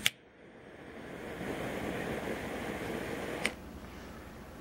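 Motorcycle-shaped jet torch lighter: a sharp click of the igniter, then the gas jet hissing steadily for about three seconds, ending with a second click as it cuts off.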